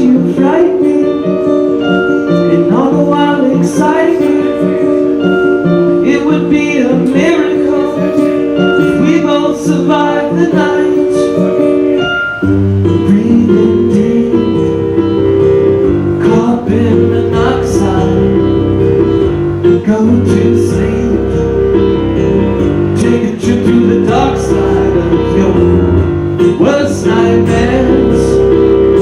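Live acoustic band: two acoustic guitars strumming and a keyboard playing sustained chords, with a man singing. About twelve seconds in, a deep bass part comes in under them.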